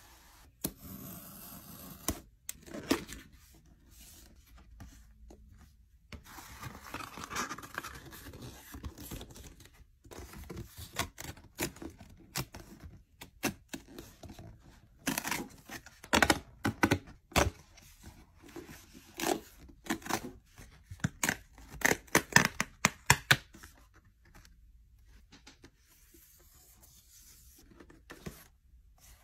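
Cardboard packaging being opened by hand: tearing, rustling and a quick run of sharp taps and scrapes, busiest through the middle and thinning out near the end.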